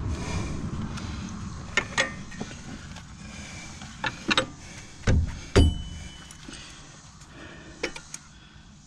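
Scattered metal clicks and knocks of tools and suspension parts being worked into place while fitting a truck's front strut assembly. There are two heavier clanks about five seconds in, the second with a brief metallic ring. A low rumble fades out in the first couple of seconds.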